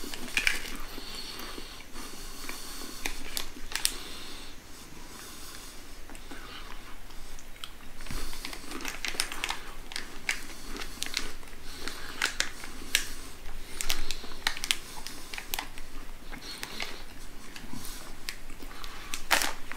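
A person chewing crunchy coconut crackers while a plastic snack packet crinkles in their hands, making a run of short, sharp crackles.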